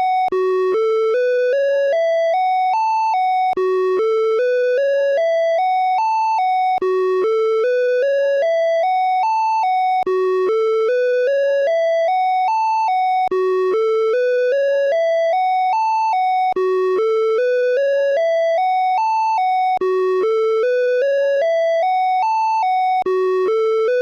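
Åland Islands EAS emergency alert alarm tone. It is a run of about nine electronic beeps climbing step by step in pitch, starting over about every three seconds in an unbroken loop.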